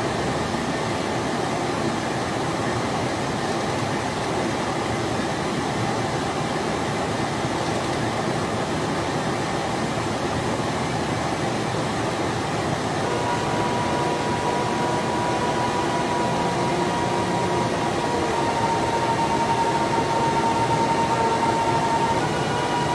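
Steady rushing noise of a jet aircraft in flight, with a thin whistle joining about halfway through.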